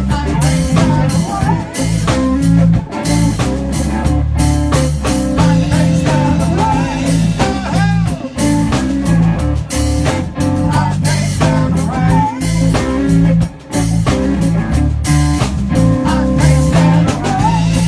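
Live band playing a blues-rock song: electric guitar with bending notes over a steady bass line and drum kit.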